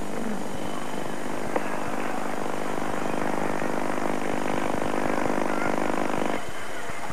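Steady buzzing drone over the background noise of a cricket broadcast, with one sharp click about a second and a half in; the drone cuts off suddenly near the end.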